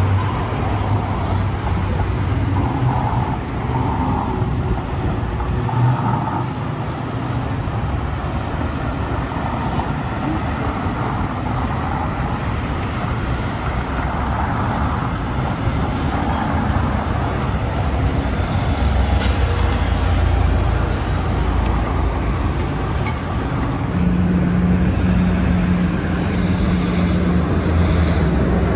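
Downtown street traffic, cars passing steadily. A city bus's engine comes close in the last few seconds, adding a steady low hum and making it a little louder.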